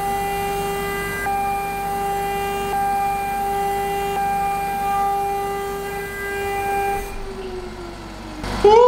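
CNC router spindle at 24,000 rpm cutting metal with a 6 mm single-flute end mill: a steady high whine with overtones. About seven seconds in the whine slides down in pitch, and just before the end a louder wavering tone comes in.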